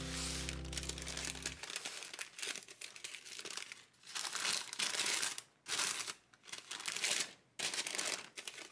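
Baking paper crinkling and rustling in a series of short bursts as it is folded and pressed around a parcel of chicken and cabbage.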